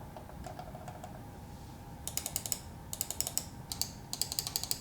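Computer mouse buttons being clicked: faint, dull clicks of a Logitech MX Master 3S's quiet buttons at first. From about two seconds in come loud, sharp clicks of an MX Master 3's buttons, in quick bursts of several clicks.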